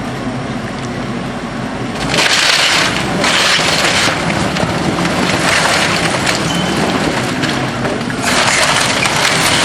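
Building demolition: loud bursts of crackling and breaking noise, three times, over a steady low hum.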